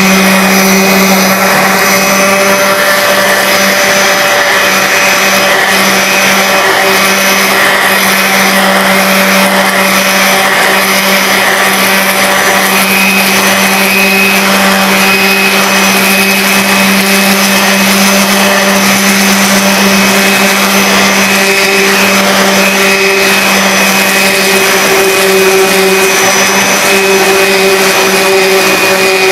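DeWalt random orbital sander running steadily, sanding the old finish off a wooden toerail: a constant motor hum with the rasp of the pad on the wood.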